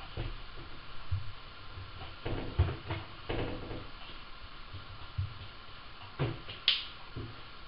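Things being moved around in a low kitchen drawer: scattered knocks and clatters, with a sharp, bright click near the end.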